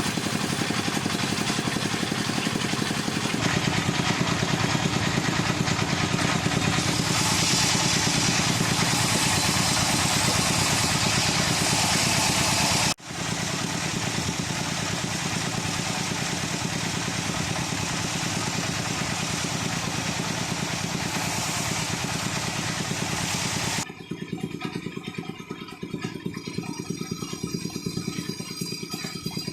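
Wood lathe running with a tool cutting the spinning wood: a steady hum under a hissing shaving noise. It breaks off abruptly about halfway through and carries on. Near the end it turns quieter and duller.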